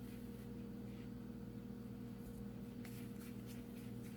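Faint handling sounds of hands shaping soft dough balls and setting them in a greased pan: a few soft light taps, most of them in the second half. A steady low hum runs underneath.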